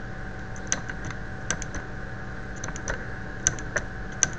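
Light plastic clicks in small clusters, about a dozen in all, from handling a digital multimeter and pressing its buttons, which switches on the display backlight. A faint steady hum runs underneath.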